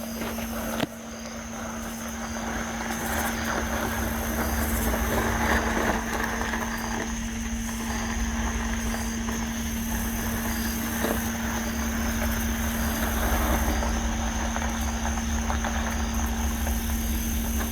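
A steady, unexplained humming tone over a low rumble, the kind of mysterious 'nging' sky sound recorded outdoors, with a short click about a second in.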